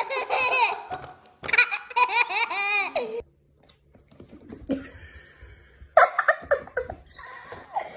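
Babies laughing: a long run of high-pitched, wavering giggles through the first three seconds, then after a quieter pause, another baby's short bursts of laughter from about six seconds in.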